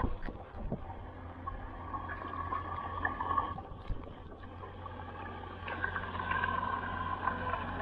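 Muffled water sound picked up by a camera held underwater in shallow water, with scattered small clicks and knocks as the mosquito net is worked over the stones.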